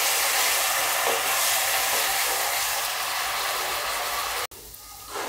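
Ginger-garlic paste and whole spices sizzling in hot oil in a kadhai as they are fried and stirred with a wooden spatula: a steady hiss that cuts off abruptly about four and a half seconds in, leaving a much fainter sizzle.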